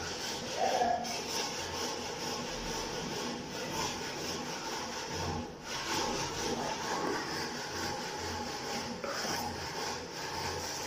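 A hand tool rubbing and scraping over wallpaper pressed against a wall: a continuous scratchy rubbing that breaks off briefly about five and a half seconds in.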